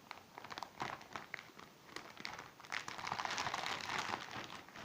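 Plastic seal wrap on a new phone box crinkling and rustling as it is peeled off, with scattered small crackles and a denser stretch of rustling about three seconds in.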